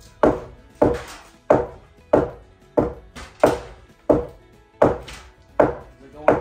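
Steady hammering on wood overhead: a hammer knocking a framing board upward into place, about ten blows, one every two-thirds of a second, each with a brief ringing tail.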